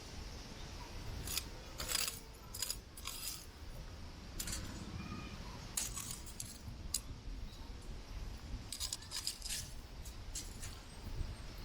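Strong wind rumbling on the microphone, with scattered sharp crackles and clicks at irregular intervals. The loudest crackles come about two seconds in and again around six and nine seconds.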